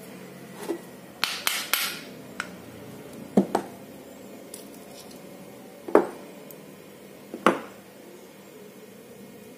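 Small metal fishing-reel parts being handled during disassembly: a short scraping rustle about a second in, then several sharp metallic clinks and knocks, two of them in quick pairs, with a brief ring after each.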